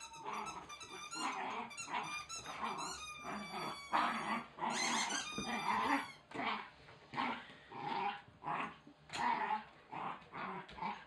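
Wire Fox Terrier puppy growling and barking in play as he attacks a chicken toy. A run of high squeaks fills roughly the first half, followed by short, separate growls and barks.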